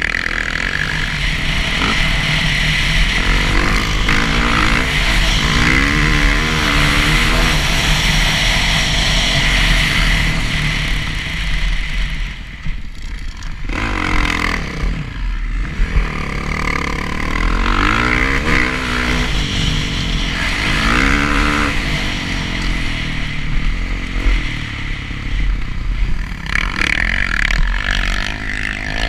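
Dirt bike engine heard from on board, its pitch rising and falling again and again as the rider works the throttle around the track, with a short drop in revs about halfway through.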